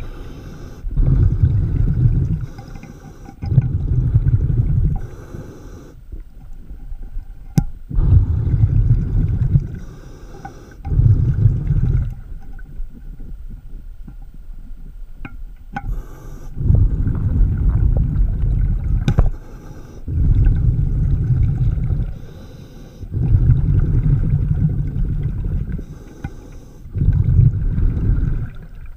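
Scuba diver breathing through a regulator underwater: bursts of exhaled bubbles rumbling past the microphone, each lasting a second or two, every few seconds. A couple of sharp clicks, about eight and nineteen seconds in.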